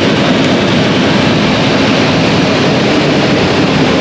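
New Holland CR8090 twin-rotor combine running under load while harvesting corn: a steady, loud mechanical drone that does not change.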